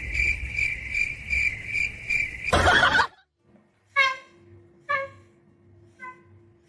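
Cricket chirping in a steady pulsed trill about three times a second, cut off by a loud noisy burst. After a short pause come three brief, high-pitched animal calls.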